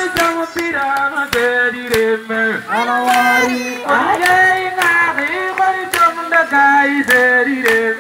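Women's voices singing a chant-like song, with long held, wavering notes and sharp percussive hits at uneven intervals.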